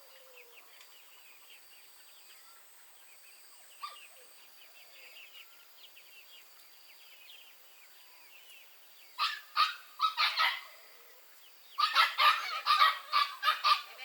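Ducks quacking in loud bunches of short calls, four about nine seconds in and then a rapid run near the end, over faint small-bird chirping.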